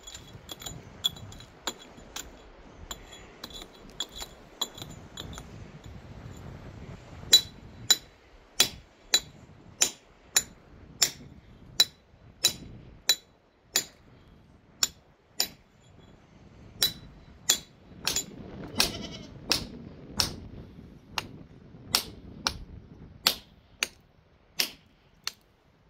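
Sheep and goats bleating, with a steady run of sharp ringing clinks, about one or two a second, that starts several seconds in.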